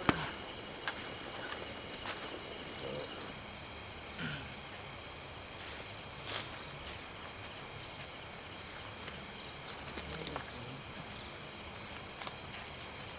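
A night chorus of insects: a steady high-pitched buzz, with a cricket chirping in an even pulse about two to three times a second. A few faint clicks come through now and then.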